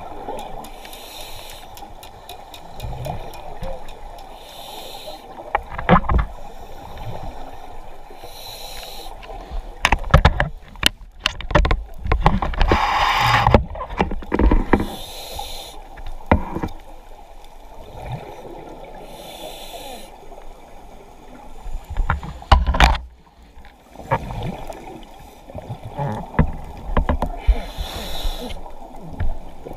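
Scuba diver's regulator breathing, heard underwater: a hiss of inhalation every four to five seconds, with rumbling bursts of exhaled bubbles, the loudest about ten to thirteen seconds in and again around twenty-two seconds.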